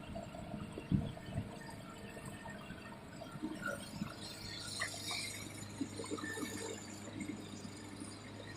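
Excavator working a waterlogged ditch: water and mud sloshing with scattered knocks, and a low steady engine hum coming in about four seconds in.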